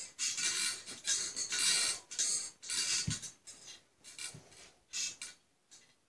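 Baby bouncer rattling and its bedding and mesh rustling in quick bursts, about two a second, as the baby kicks and rocks it, with a low bump about three seconds in. The bursts grow fainter after about four seconds.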